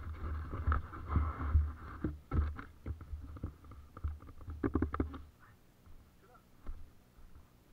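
Irregular low rumble with scattered knocks on the camera's microphone, as it is moved about; it dies away about five seconds in.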